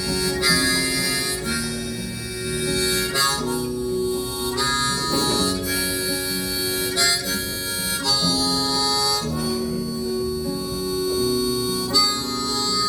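Harmonica playing held notes over acoustic guitar in a country song's instrumental outro.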